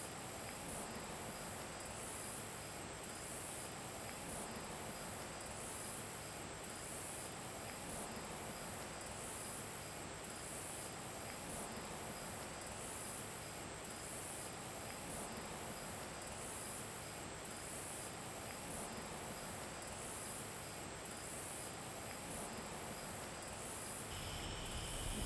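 Insects chirping in a steady high-pitched chorus that pulses about three times every two seconds, over a faint even hiss.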